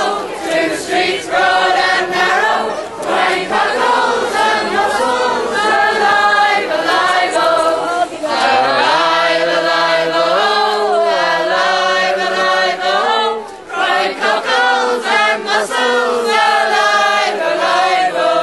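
A large crowd singing a song together, many voices in unison on long held notes, with a brief drop about thirteen seconds in.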